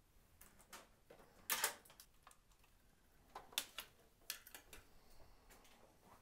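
Faint, irregular clicks and knocks from a person moving about and handling things; the loudest comes about one and a half seconds in.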